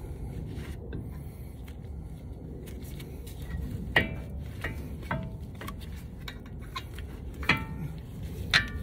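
Metal clinks with a short ring as steel caliper bolts and hand tools are handled against a front brake caliper while the bolts are fitted, about half a dozen sharp clinks with the loudest about four seconds in and near the end, over a steady low background rumble.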